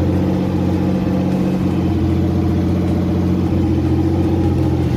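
Helicopter engine and rotor running steadily, a loud even drone with a fast, regular beat from the blades, heard from inside the closed cabin.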